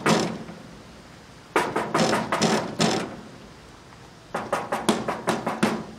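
Fists knocking on a metal door: a few blows right at the start, then two rounds of rapid knocking, about six and about eight knocks, with a short pause between.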